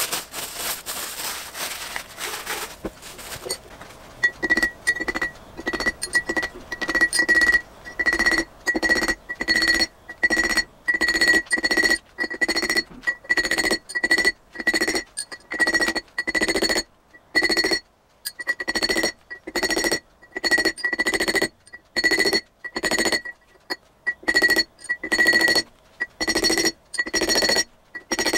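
Soft-face mallet tapping a steel drift to drive a precision bearing down onto a lathe spindle, a steady series of light blows about one or two a second, each with a clear metallic ring. A few seconds of rustling come before the tapping starts.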